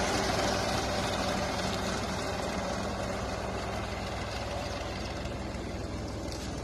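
Mahindra 495 DI tractor's three-cylinder 45 hp diesel engine running steadily, slowly getting quieter.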